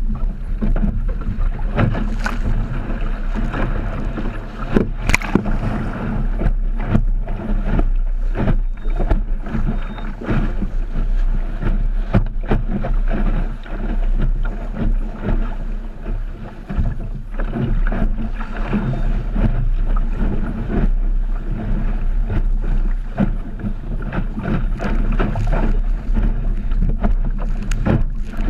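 Water rushing and splashing against the hull of a small sailboat under way through chop, with steady wind buffeting on the microphone and frequent short knocks as the boat slaps into waves.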